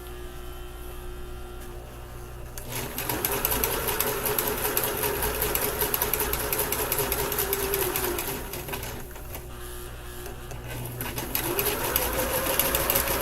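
Basic Kenmore electric sewing machine running a zigzag stitch along a fabric edge, the needle going up and down fast. It is quieter at first, runs fully from a few seconds in, eases off for a few seconds past the middle, then speeds up again as the foot pedal is pressed.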